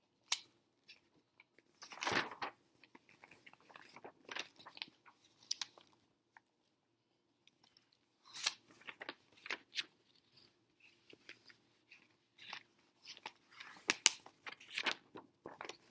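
Pages of a picture book being turned and handled: scattered paper rustles and soft taps, with a low thump about two seconds in and the sharpest click near the end.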